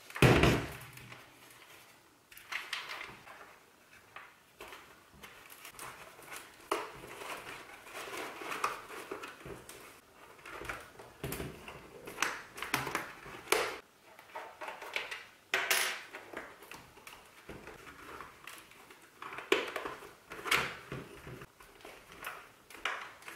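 Hands working on a helmet: irregular clicks, taps and rustles of plastic and fabric as an intercom's cable and plug are tucked away into the helmet.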